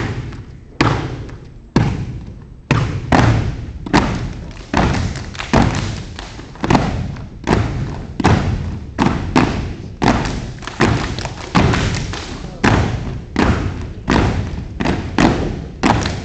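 Step team stepping in unison: sharp stomps and claps about two to three a second in a syncopated rhythm, each ringing on in the echo of a gym.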